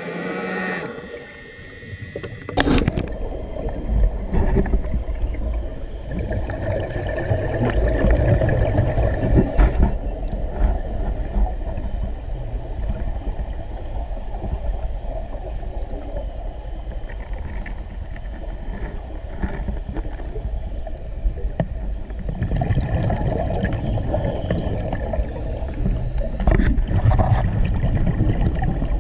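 Muffled underwater rumble and gurgling picked up by a camera in its waterproof housing, with the swelling and fading bubble noise of a scuba diver breathing through a regulator. It starts abruptly about two and a half seconds in, after a brief gliding tone.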